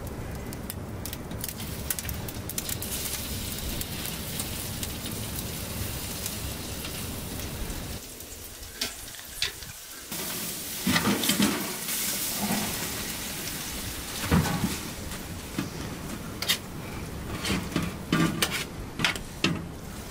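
Food sizzling in hot oil in a pan: a steady frying hiss. After a short break about eight seconds in, the sizzling returns with a utensil stirring, scraping and clicking against the pan.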